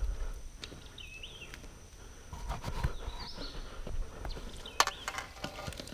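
Scattered scuffs, taps and clicks of shoes and hands working through wet net debris on asphalt. A few short chirping calls come about a second in, again around three seconds and near the end.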